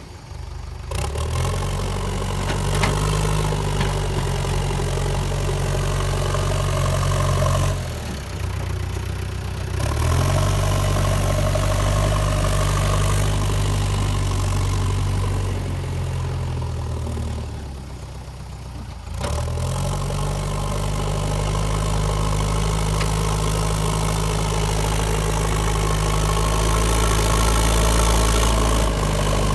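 JCB 3DX backhoe loader's diesel engine running steadily. Its drone dips briefly about eight seconds in and again around eighteen seconds, then comes back.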